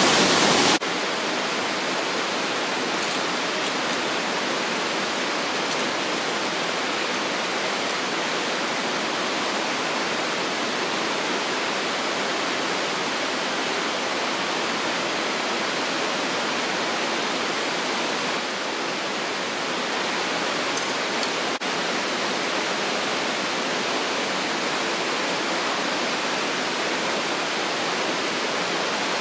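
Steady rushing roar of a mountain waterfall, loud for the first second, then dropping suddenly to a quieter, even rush of water that holds steady.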